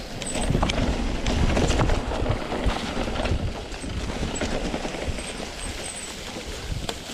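Mountain bike rolling over a rough dirt trail: a continuous rumble of tyres on the ground, with frequent sharp knocks and rattles from the bike over bumps.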